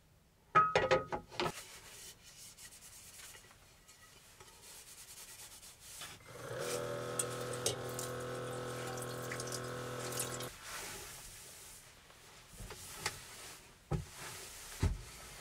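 Metal clatter as the two halves of a hot sandwich maker are handled, then a steady pitched hum for about four seconds that cuts off suddenly. Near the end, a paper towel rubs across a wooden tabletop, with a couple of soft knocks.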